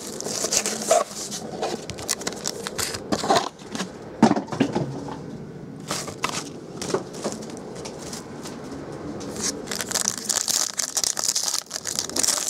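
Plastic shrink-wrap crinkling as it is torn off a box of trading cards, with scattered sharp knocks as the box is handled. Near the end, a foil card pack crackles as it is torn open in the hands.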